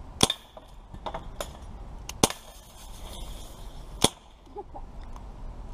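Daisy Powerline 426 CO2 BB pistol firing, three sharp snaps about two seconds apart with a fourth at the very end, and fainter ticks between the shots.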